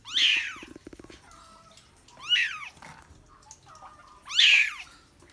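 Kitten meowing: three high-pitched mews about two seconds apart, each rising and then falling in pitch.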